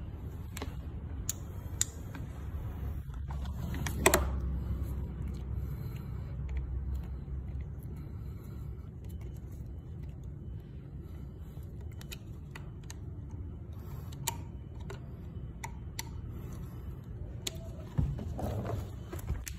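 Hands fitting replacement seat runner strips onto a rowing machine's metal seat rail: scattered light clicks and taps, a sharper knock about four seconds in and a brief scrape near the end, over a low steady rumble.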